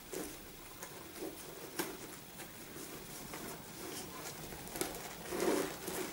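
A handbag being handled and opened: light rustling with a few sharp clicks, a louder rustle about five seconds in.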